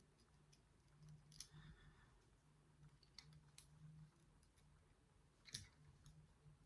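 Near silence, with a few faint metallic clicks and scrapes as a small four-lever drawer lock is worked apart by hand, the clearest about a second and a half in and again about five and a half seconds in.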